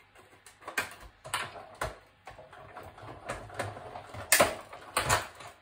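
Spellbinders Platinum 6 manual die-cutting machine being hand-cranked, feeding an acrylic plate sandwich with a die through its rollers: a run of irregular clicks and knocks with a faint low rumble, and two louder clacks near the end.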